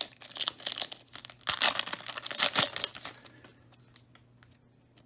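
Trading card pack wrapper being torn open and crinkled, in a run of crackling bursts that dies away after about three seconds.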